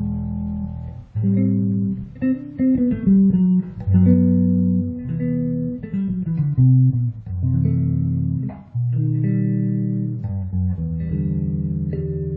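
FL Custom Master Custom 006 five-string electric bass with Aero Custom H-series pickups, played solo. A low note rings and stops about a second in, then a quick run of short plucked notes follows, and the phrase ends on longer held notes.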